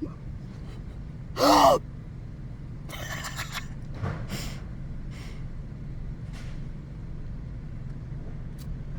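A woman hiccupping: one loud, short voiced hiccup about a second and a half in, then a few quieter breathy hiccups over the next few seconds, part of a persistent, uncontrollable hiccup fit. A car engine idles with a steady low hum underneath.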